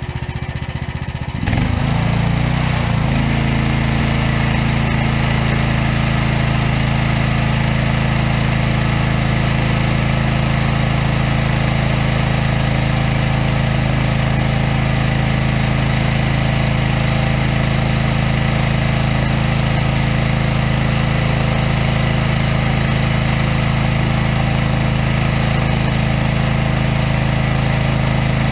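Engine of a Regon R1 firewood processor revving up about a second and a half in, then running steadily at working speed.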